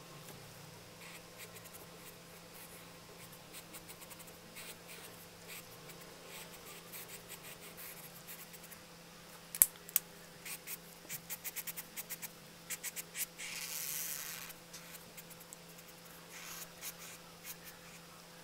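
Felt-tip marker stroking across sketchbook paper: faint scratchy strokes at first, a sharp tap about halfway through, then a run of quick short strokes and one longer stroke, with a few more near the end.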